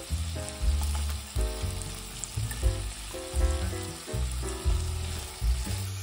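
Chicken pieces sizzling as they fry in oil in a pot, a steady hiss under background music with a bouncy bass line.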